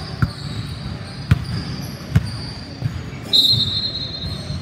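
A basketball bouncing on a hardwood gym floor, a handful of separate thuds, then a referee's whistle blowing one long, steady blast a little over three seconds in, signalling a stop in play.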